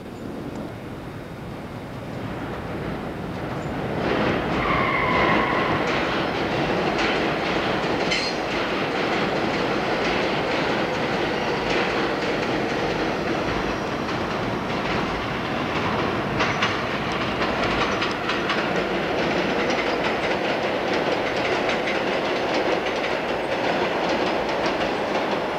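A New York City subway train approaches and passes close by, loudening over the first few seconds. Its wheels clatter over rail joints above a steady rumble. A brief high tone sounds about five seconds in.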